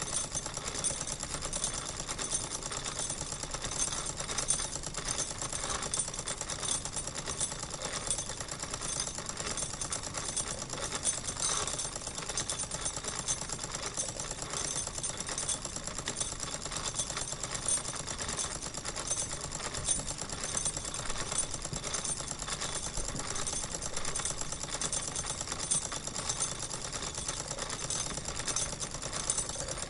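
Wilesco model steam engine purring along at a steady speed: a fast, even mechanical clatter that does not change.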